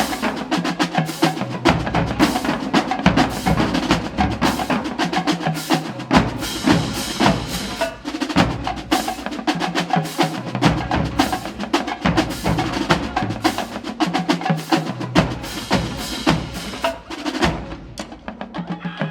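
Marching band drumline playing a cadence: fast, dense snare and stick strokes with sharp clicking hits, and bass drums that drop in and out every few seconds.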